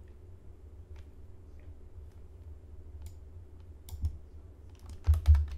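Scattered clicks of a computer mouse and keyboard: a few single clicks, then a quick cluster of louder clicks near the end, over a steady low hum.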